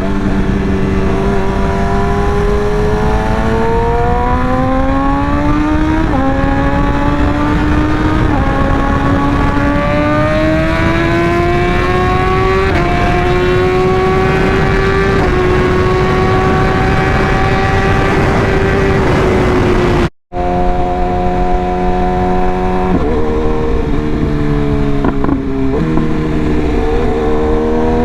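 BMW S1000RR's inline-four engine under acceleration. Its pitch climbs gradually in each gear and steps abruptly at several quickshifter gear changes, over a steady rush of wind noise. The sound cuts out for an instant about 20 seconds in, then the engine holds a steadier pitch with a few shifts down and up.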